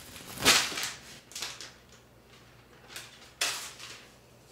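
Rustling and handling noise from peel-and-stick vinyl tiles and their peeled-off paper backing, in four short bursts: the loudest and longest about half a second in, then others about a second and a half in and around three to three and a half seconds.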